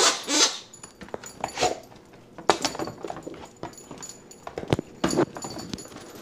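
Rubber squeaky dog toy squeaking as a German shepherd chews it: several short squeaks at irregular intervals, with small clicks between them.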